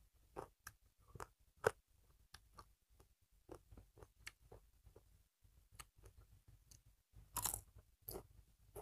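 Close-miked eating: chewing with crisp, crunching clicks as a papad (thin fried lentil wafer) is bitten and chewed, with a louder crunch about seven seconds in.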